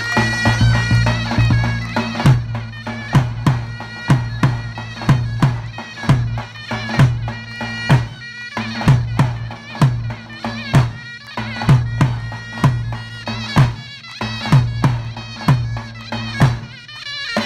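Davul and zurna playing halay dance music: a shrill, reedy zurna melody over a davul beat, with a heavy stroke about once a second and lighter strokes between.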